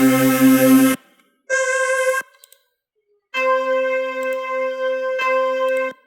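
Software synthesizer and keyboard sounds auditioned one after another: three held notes of different tone colours, each stopping abruptly, with short silences between. The last note is the longest, about two and a half seconds.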